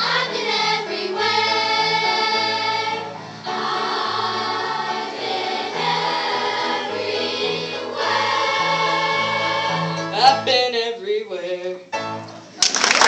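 A choir of children's voices sings in full chords over low held accompaniment notes. The singing breaks up near the end as the song closes, and applause breaks out in the last half second.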